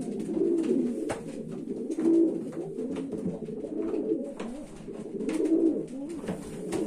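Racing pigeons cooing: low, warbling coos that run on and overlap, with a few faint clicks.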